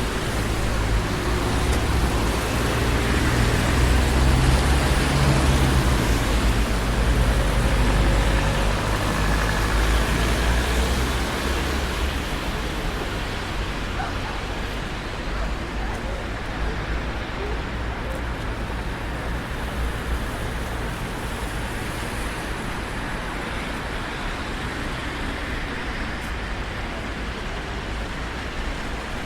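Traffic on a busy city street: a steady wash of passing cars and tyre noise. A heavier low rumble swells over the first ten seconds or so as a vehicle goes by, then settles back to the steady hum.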